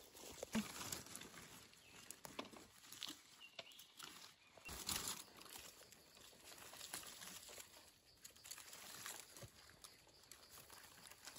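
Faint rustling and crackling of dry leaf litter as someone walks and crouches on the forest floor, with scattered small clicks and a louder rustle about five seconds in.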